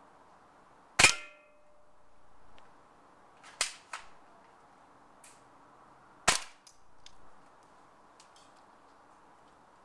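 Airsoft M14 firing at a full soda can: three sharp shots, about a second in, at three and a half seconds and at about six seconds. The first and loudest is followed by a short metallic ring.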